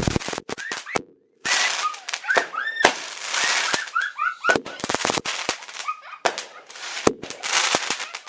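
A 16-shot aerial firework cake firing, sharp bangs and pops in quick irregular succession with short whistling tones mixed in.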